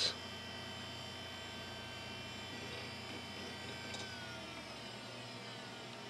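Faint steady whine of an old desktop PC's fans and hard drive; about four seconds in a click, then the hard drive's whine falls in pitch as it spins down while the fans keep running. This is the sign of the computer halting at 'safe to turn off' rather than powering itself off.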